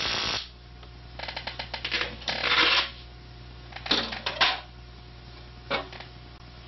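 A Lakhovsky multiple wave oscillator's steady spark-gap buzz cuts off suddenly just after the start as the unit is switched off. A faint hum stays under a few bursts of clattering and clicking from equipment being handled, loudest around two and a half and four seconds in.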